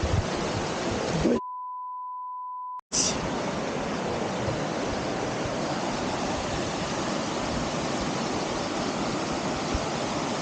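Steady rush of a waterfall. About a second and a half in, it drops out for an electronic beep at one steady pitch lasting about a second and a half, then the rushing water comes back.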